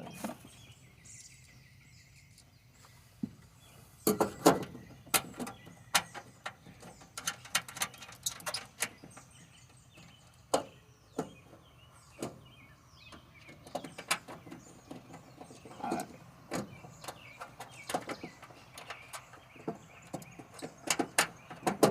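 Irregular metallic clicks and knocks of hand tools and hardware being handled while a starter solenoid is mounted. The clicks start about four seconds in and come in scattered clusters.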